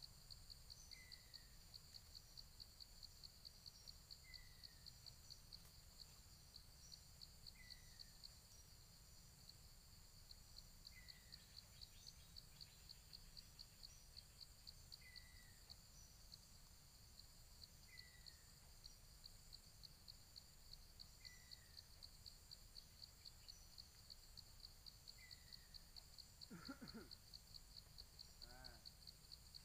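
Forest ambience: insects trilling steadily in a fast pulsing rhythm, with a faint short falling chirp repeated every three to four seconds. Near the end come two brief low calls, a second or so apart.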